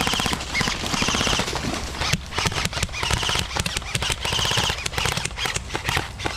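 Airsoft guns firing: rapid, irregular clicking and clattering shots.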